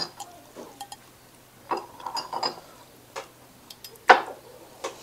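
Eating noodles from a ceramic bowl: scattered sharp clicks and clinks of a metal spoon and chopsticks against the bowl, some with a brief ring, the loudest about four seconds in.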